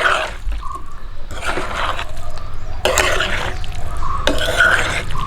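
Spoon stirring thick, wet aviyal (vegetables in a coconut and curd mash) in a pot, giving repeated squelching strokes about four times with short pauses between them.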